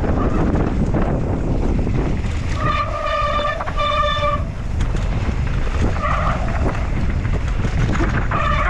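Downhill mountain bike run: wind buffeting the microphone and the bike rattling over rough dirt trail, broken by two long, steady, high-pitched squeals of disc brakes about three and four seconds in and a shorter one near six seconds.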